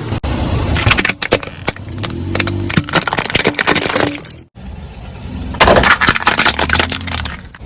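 Car tyre rolling over and crushing brittle objects: a dense run of cracking and breaking about a second in, then after a brief cut a second loud run of crackling and breaking near the end, over a low engine hum.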